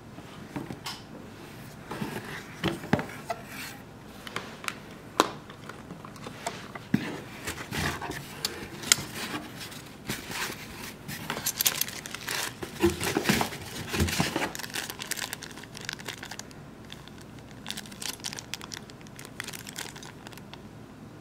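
Clear plastic packaging crinkling and rustling as it is handled and pulled out of a box, with irregular crackles and light taps. Busiest in the middle, quieter near the end.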